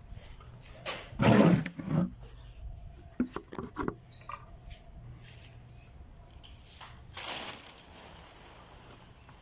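Handling noise from a large black plastic bag being dragged and moved: rustling, scrapes and knocks. The loudest bump comes about a second in, a few sharp clicks follow, and there is a shorter rustle near the end.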